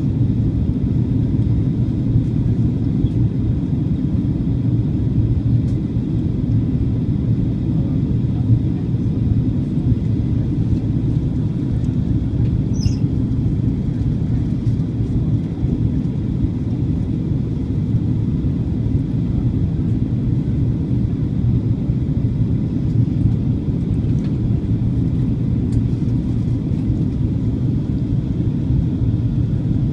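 Steady low rumble inside the cabin of a Boeing 737-800 on its approach: engine and airflow noise heard from a window seat over the wing.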